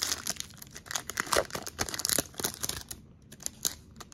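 Wrapper of a 2019 Topps baseball card pack being torn open and crinkled in the hands: a run of crackles, with a short pause about three seconds in.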